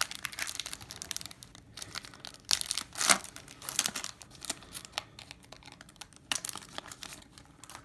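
A hockey card pack wrapper being torn open and crinkled by hand: a run of sharp crackles and rips, loudest in a couple of spells partway through.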